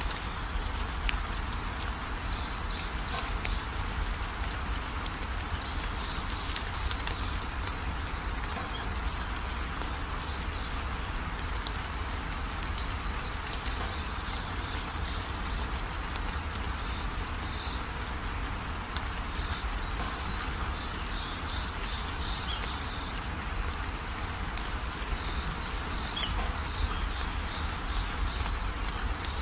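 Steady background hiss with a low rumble, broken every few seconds by clusters of high, thin chirping.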